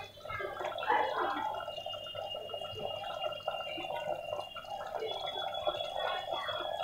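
Keema (minced meat) with onions frying in oil in an open pressure cooker, bubbling and sizzling with a steady crackle of small popping bubbles.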